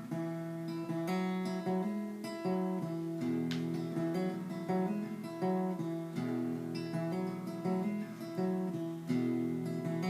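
Acoustic guitar playing an instrumental passage between sung verses, chords strummed and picked at a gentle pace.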